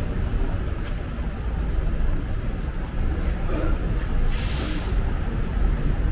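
Steady low rumble of road traffic, with a short sharp hiss of air brakes from a bus a little over four seconds in.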